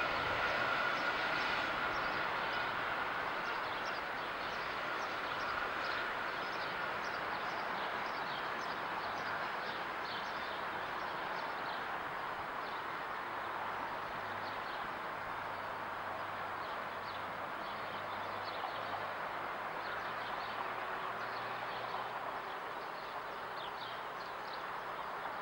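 Distant BR 42-class steam locomotive (CFL 5519) running away with its train, a steady rumble slowly dying down, with birds chirping over it.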